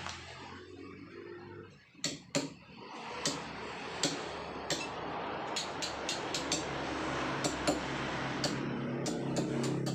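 Hand chisel struck with a hammer, carving paras jogja natural stone: sharp, irregular taps starting about two seconds in and coming quicker toward the end, over a steady hiss.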